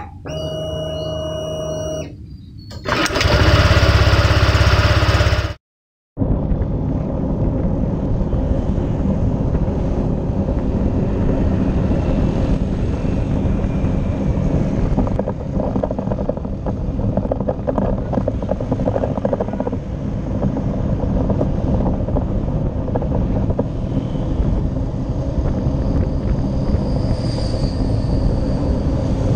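A short logo sting: a pitched tone for about two seconds, then a loud whoosh that cuts to silence. After that, steady road noise from riding along in traffic: wind on the microphone over a low engine hum.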